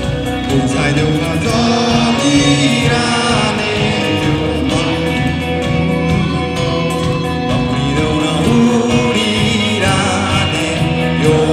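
Live band playing a song, with singing over acoustic guitar, electric guitar and drums.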